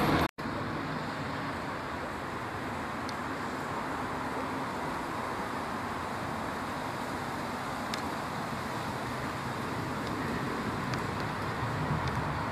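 Distant first-generation diesel multiple unit approaching, a steady low rumble of its diesel engines and wheels that grows a little louder near the end.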